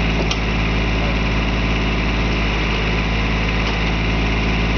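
John Deere tractor engine running steadily while it powers a backhoe attachment that is digging. There is a brief click about a third of a second in.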